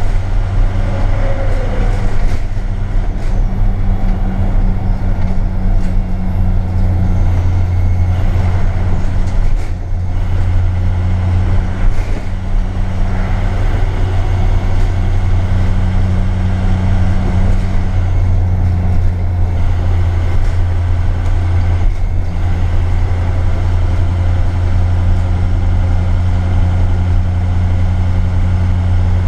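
IC CE200 school bus with a Navistar VT365 V8 turbodiesel, cruising at steady speed, heard from the driver's seat: a steady low engine drone with road noise and a few brief knocks.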